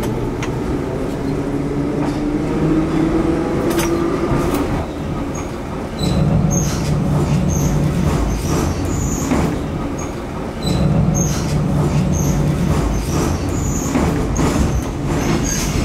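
Ezh3 metro track-recording car running along the track: a steady rumble of wheels on rail with clicks over joints. A whine rises slowly through the first few seconds. Short high wheel squeaks come in the second half, and the rumble grows louder about six and eleven seconds in.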